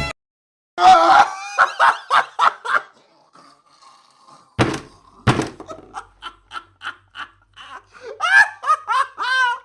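A person laughing hard in rapid bursts, with two sharp knocks about five seconds in.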